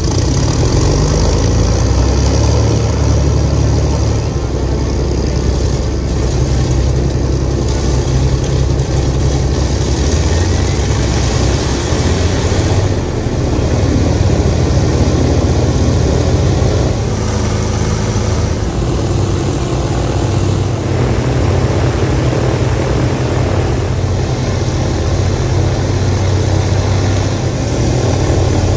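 Avro Lancaster bomber's Merlin V12 piston engines running together during a ground engine run, a loud, steady multi-engine note whose pitch shifts a little about two-thirds of the way through as the engine speeds change.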